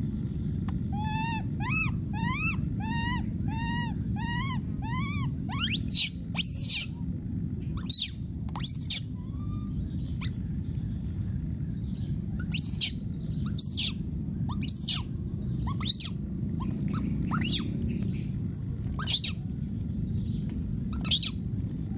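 Baby macaque calling: a run of about nine short rising-and-falling coos, roughly two a second, then from about six seconds in, loud sharp screams about once a second, an infant crying out for its companions. A steady low background rumble runs underneath.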